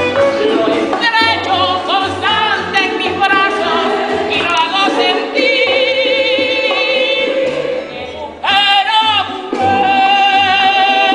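A woman singing lead with a mixed choir, the voices held with a wide vibrato. The singing thins out for a moment about eight seconds in, then comes back full.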